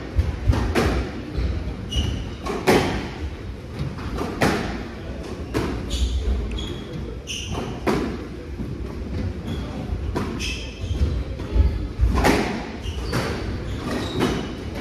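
Squash rally: the ball cracking off rackets and hitting the court walls at irregular intervals about a second apart, with short squeaks of court shoes on the wooden floor between the hits, echoing in the court.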